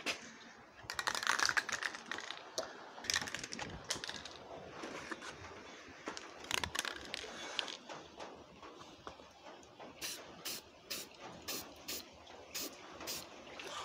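Aerosol can of Slip Plate dry-film graphite lubricant being handled and sprayed, with scattered clicks and hiss, then a run of short spray bursts, about three a second, in the last few seconds.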